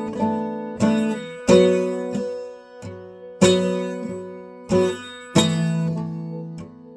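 Acoustic guitar music: chords struck about once a second, each ringing out and dying away before the next.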